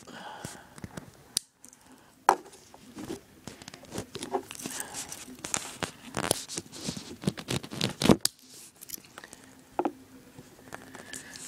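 Scattered sharp clicks and rustling as a new Victorinox Tinker Swiss army knife is handled and its tools are pried open. The new joints are really stiff.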